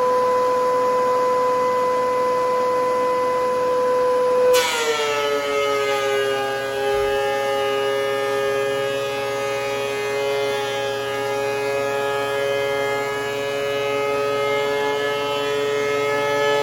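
DeWalt DW735X thickness planer running with a steady high whine. About four and a half seconds in, a board enters the cutterhead: the motor's pitch drops slightly under load, and the rougher noise of the knives cutting wood joins it.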